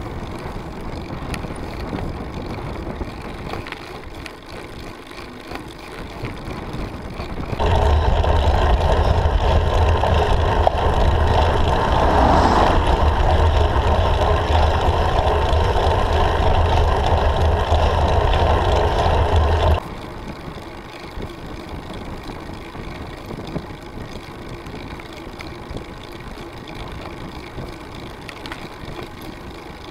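Wind and road noise on the microphone of a camera riding on a road bicycle. For about twelve seconds in the middle it jumps to a much louder, steady rumble, starting and stopping abruptly, before dropping back to the lower rush.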